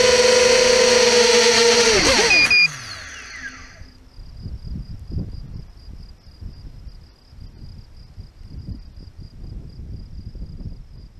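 Small FPV quadcopter's electric motors and propellers whining steadily, then spinning down with a falling pitch about two seconds in as it comes down in the grass, with two short electronic beeps. After that, faint low rustling wind noise and crickets chirping steadily.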